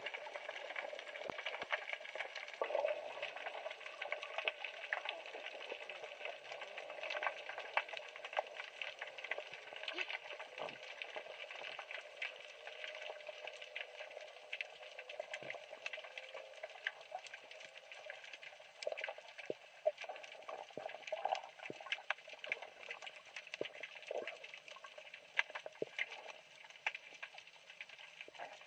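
Underwater reef crackle: a dense, steady crackling of many small clicks, with a few louder pops scattered through.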